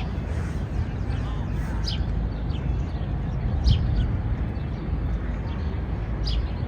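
City park ambience: a steady low rumble under short, high bird chirps that come every second or so.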